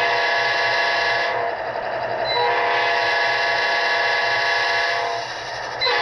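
Sound system of an HO-scale Amtrak P42 model locomotive blowing its multi-chime horn: two long blasts and then a short one near the end, over a steady low diesel engine hum.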